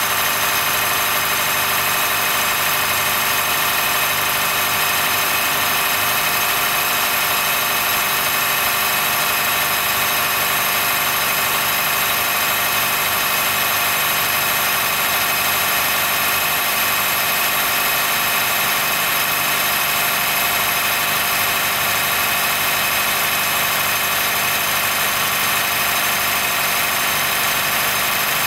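Honda Fit Hybrid (GP5) running, with a steady, high-pitched squeal, a 'kiri-kiri, kii-kii' creak and squeal that holds without change. It sounds only in cold weather, below about 10 °C, and stops once the car has warmed up. The dealer judged it harmless, since it goes away when warm and no warning lights come on.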